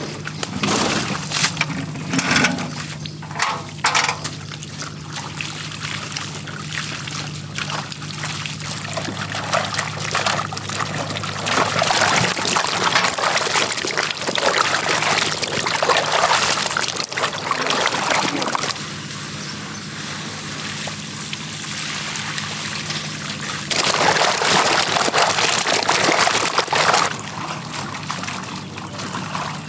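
Water pouring and splashing, swelling and easing off in stretches, with occasional knocks and a steady low hum underneath.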